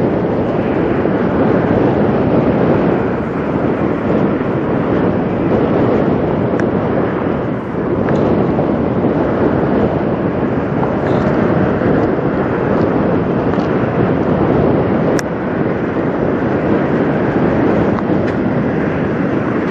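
Diesel engine of a Kenworth semi tractor idling close by, a loud, steady running sound, with wind noise on the microphone.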